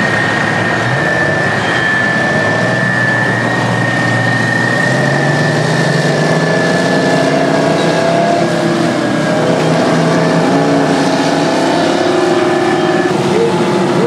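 Terex 82-80 crawler bulldozer's twin Detroit Diesel two-stroke engines working under load as it pushes dirt. The engine pitch shifts up and down, and a steady high whine runs over it and stops near the end.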